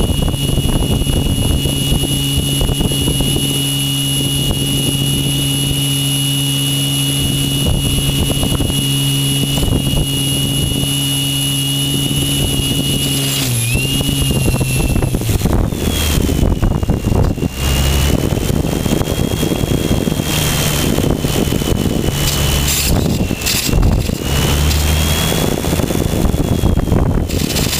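Electric motor and propeller of a GWS Slowstick RC plane whining steadily, recorded by a camera on the airframe, with wind rushing over the microphone. About halfway through the whine dips in pitch, then wavers up and down as the throttle changes, with gusty wind buffeting.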